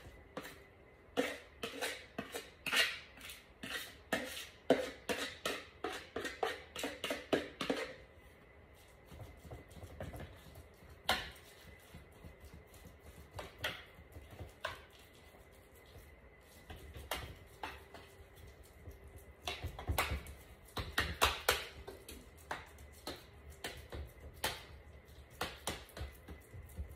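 Rapid clattering and tapping as meatloaf mixture is scraped from a plastic mixing bowl into a loaf pan. For the rest of the time, softer scattered knocks and dull thumps come as the ground turkey is pressed and patted into the pan.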